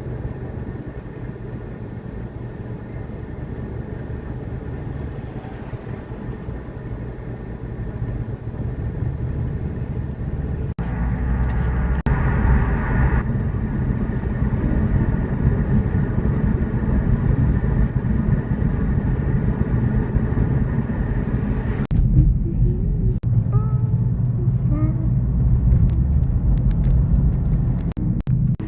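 A steady low rumble like a vehicle running, growing louder about a third of the way in. Short high chirps or squeaks come over it near the end.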